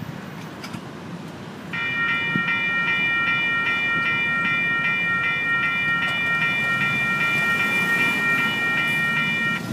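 Electronic railroad-crossing bell at a grade-crossing signal, ringing as a steady high multi-tone ring with a pulse about twice a second. It starts abruptly about two seconds in and stops shortly before the end.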